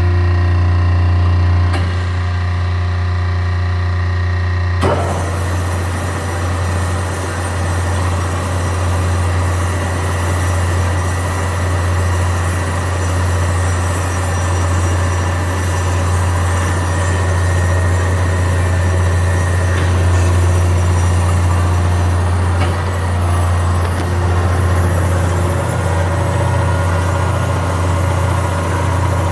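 Amada HA-16 automatic horizontal bandsaw running under power: a steady low motor hum, joined about five seconds in by the continuous noisy whir of the band blade running as the machine starts its automatic cutting cycle.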